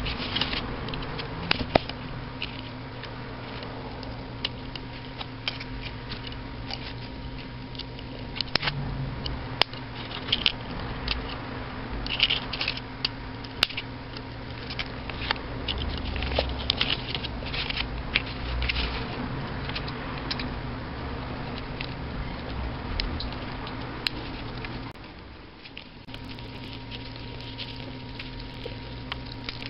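Small red-handled cutters snipping, prying and bending the thin steel casing of a 9-volt battery: irregular sharp clicks, snaps and metal crinkling. A steady low hum runs underneath.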